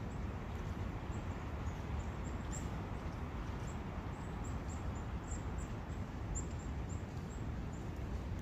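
Steady rushing of a woodland brook, with many short, high-pitched bird chirps over it, coming thickest in the second half.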